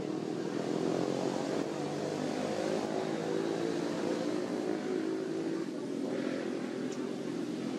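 An engine running, a steady drone.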